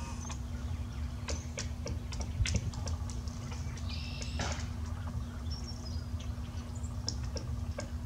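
Pileated woodpecker working a tree limb: irregular light taps and clicks, with a short high bird call about four seconds in, over a low steady rumble.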